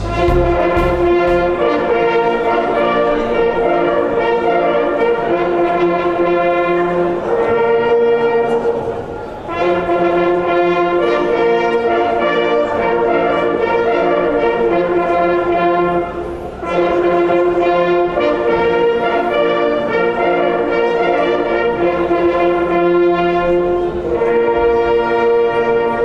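German hunting-horn ensemble (Jagdhornbläser) playing a hunting signal together on small coiled Fürst-Pless horns, in held brass notes and chords. The piece falls into three phrases with short breaks about nine and sixteen seconds in, and ends on a held chord.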